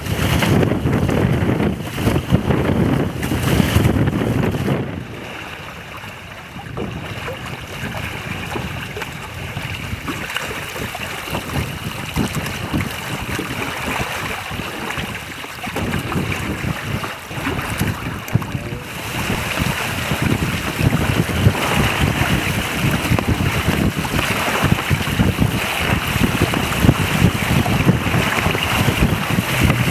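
Wind buffeting the microphone over water rushing along the hull of a 5 m sailing proa under way at speed. The buffeting is heavy at first, eases after about five seconds, and returns strongly past the middle.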